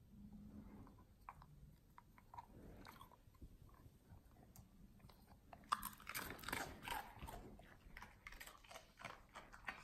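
Border collie chewing a fish-shaped dog biscuit: a run of quick, crisp crunches, loudest from about six seconds in.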